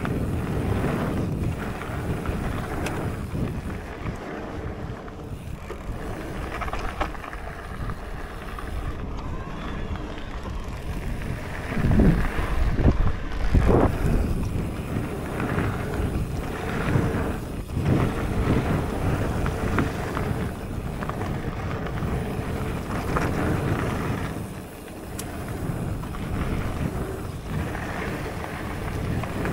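Cube Stereo SL140 mountain bike rolling fast down a gravel trail: steady tyre noise over the loose surface with wind buffeting the microphone, growing louder and rougher for a couple of seconds about twelve seconds in.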